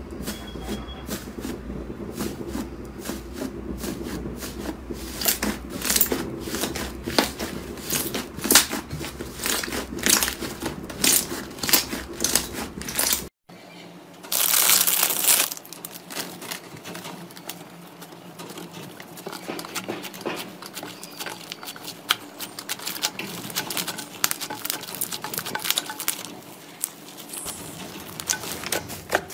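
Hands pressing and poking a thick white fluffy slime, giving a quick run of crisp crackling pops. About halfway through, a plastic packet of modelling clay crinkles loudly for a second or two, then softer crackles of slime being worked follow.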